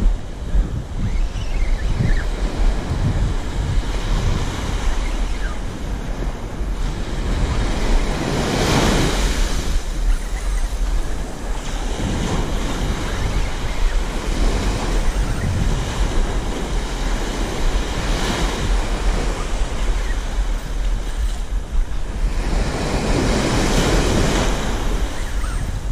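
Ocean surf breaking and washing up the beach, the wash swelling loudest about a third of the way in and again near the end. Wind buffets the microphone as a steady low rumble underneath.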